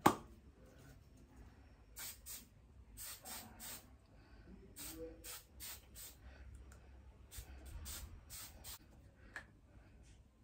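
Hairspray spritzed onto a wig in a series of short hisses, a dozen or so quick bursts with pauses between them, after one sharp click at the start.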